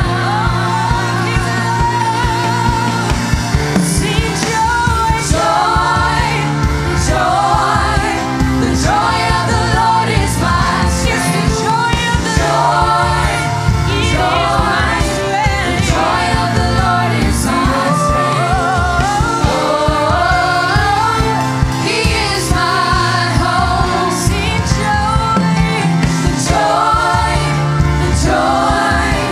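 Live gospel worship music: a group of male and female singers on microphones singing together over a keyboard-led band with a steady beat.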